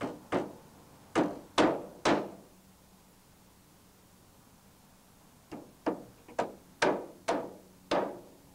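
Claw hammer gently tapping small No. 2 nails through a metal vent flashing strip into the wooden edge of a roof panel. A quick run of about five taps, a pause of about three seconds, then another run of about seven taps.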